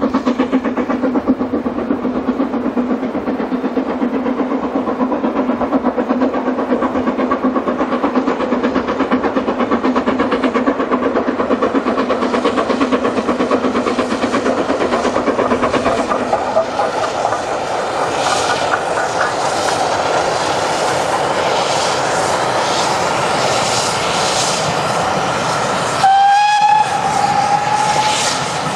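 Train running along the track with a steady hum and rhythmic clickety-clack of the wheels. About 26 s in, the locomotive's whistle sounds, one held note for about two seconds.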